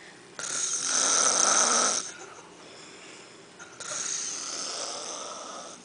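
A man snoring in his sleep: two long snores, the first about half a second in and louder, lasting about a second and a half, the second softer, starting a little before four seconds in and running on to the end.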